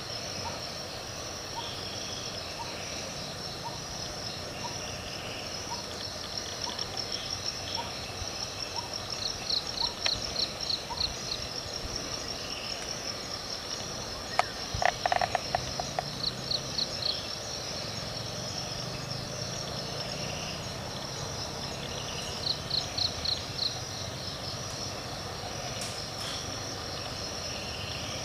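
Forest ambience of insects and other small calling animals: a steady high-pitched insect drone, with groups of short pulsed chirping trills every several seconds. About halfway through, a louder, lower-pitched pulsed call lasts about a second.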